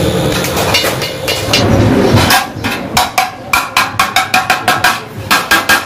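Hammer tapping on a stainless steel popsicle-mold tray as molds are fitted into it: quick sharp metallic taps, about four a second, that begin about two seconds in after a stretch of steady rushing noise, with a brief pause near the end.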